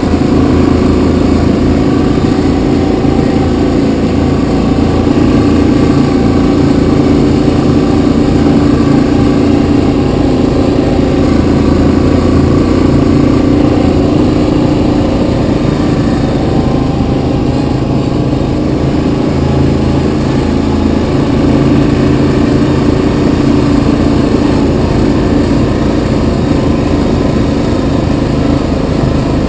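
Yamaha Kodiak 700 ATV's single-cylinder four-stroke engine running steadily while riding along a trail, its pitch shifting only slightly with throttle.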